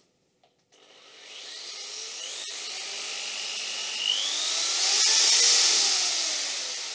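Corded electric drill with a 6 mm bit boring through a wooden board. The motor starts about a second in, its pitch shifting as the bit works into the wood, and it is loudest a little past the middle before easing off.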